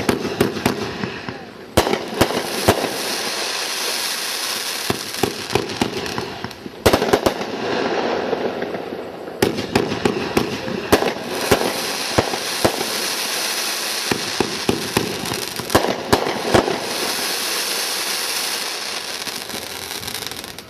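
Winda 'Knockout Equipment' consumer firework going off: a continuous crackling hiss studded with many sharp pops and reports, with fresh loud volleys about 2, 7, 9 and 16 seconds in, dying down near the end.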